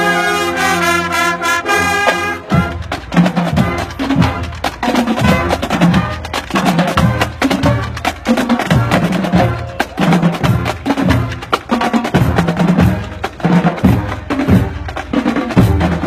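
High school marching band playing on the march: the brass holds a loud chord for the first two seconds or so, then the drumline's snares and bass drums carry on in a fast, steady percussion rhythm.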